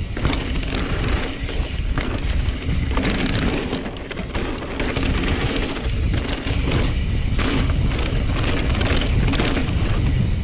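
2020 Norco Sight C3 mountain bike ridden down a trail: steady tyre noise and drivetrain rattle over a heavy low rumble.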